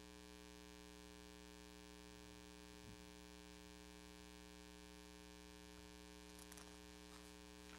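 Near silence apart from a steady electrical mains hum, a low buzz made of many evenly spaced steady tones.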